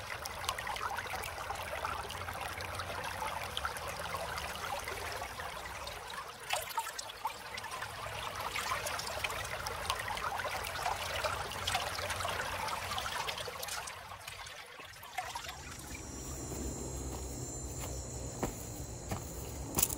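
A small stream trickling and babbling over rocks, a dense, even water sound. About fifteen seconds in it fades out and gives way to a quieter, different outdoor background.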